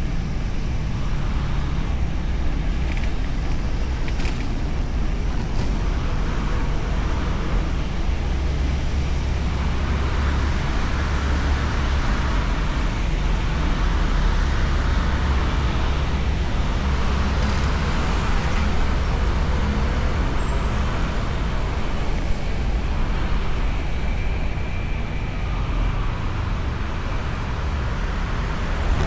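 Honda Beat scooter riding through traffic, heard from a camera mounted on the bike: a steady mix of engine, road and passing traffic noise with a deep rumble underneath.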